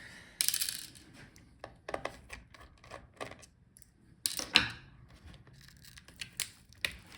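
Light clicks, taps and a brief scrape of small hard parts and a tool being handled inside an opened laptop as the battery connector is worked loose. The sharpest click comes a little over four seconds in.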